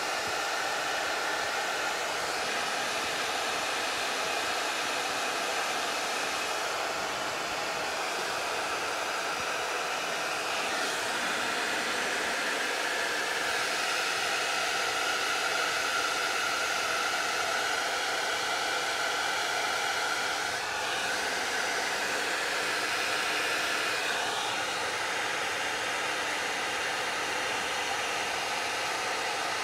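Hot Tools handheld hair dryer running steadily, blowing hot air at close range onto crayon wax on a canvas to melt it. Its whoosh shifts a little in tone a couple of times as it is moved over the surface.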